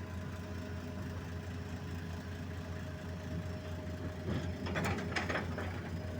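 Heavy diesel engine idling steadily, with a few brief sharper sounds about four and a half to five seconds in.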